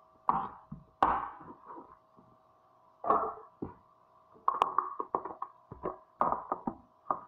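Irregular knocks and taps of a knife and cut eggplant pieces on a wooden cutting board, the loudest about a second and three seconds in, over a faint steady hum.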